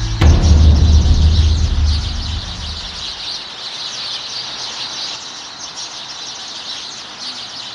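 A deep cinematic boom hits just after the start, cutting off the sustained music, and rumbles away over about three seconds. Behind and after it, a steady high-pitched chirping ambience carries on, quieter.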